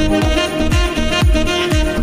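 Background music with a steady beat, a deep kick drum thudding under held tones.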